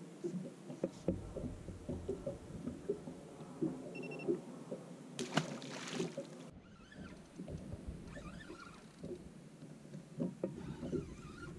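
Small knocks and water lapping against a small fishing boat's hull, with gear being handled. About five seconds in there is a brief rush of noise that cuts off suddenly.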